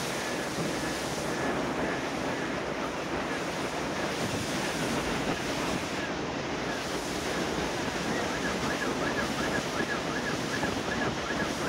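Tornado winds blowing hard, a steady dense rush with heavy wind buffeting on the microphone.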